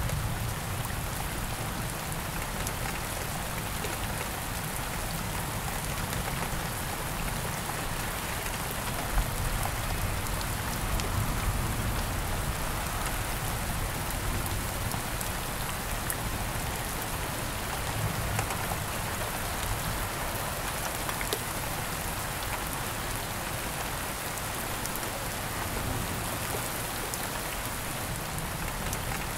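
Steady rain falling: an even hiss of drops, with a low rumble swelling underneath now and then.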